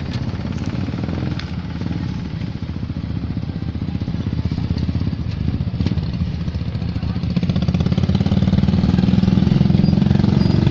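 An engine running steadily with a low hum, growing louder in the second half.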